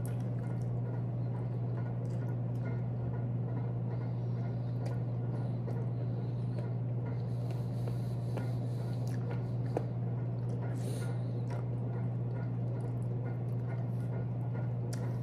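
A steady low hum throughout, with faint wet chewing, sucking and small clicks from eating chicken feet by hand.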